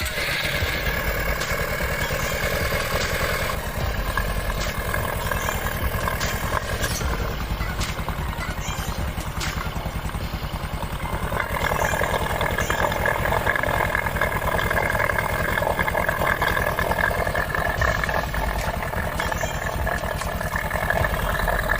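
Honda Supra X 125's single-cylinder four-stroke engine idling steadily while it warms up after a top-end overhaul and new piston, with a higher whine growing stronger about halfway through.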